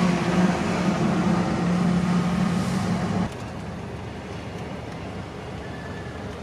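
Motor vehicle engine running with a steady low hum over road noise, dropping suddenly to a quieter steady background about three seconds in.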